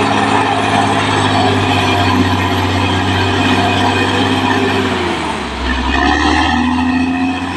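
Caterpillar D6R XL bulldozer's diesel engine running loud and steady. About five seconds in, its note drops and settles lower.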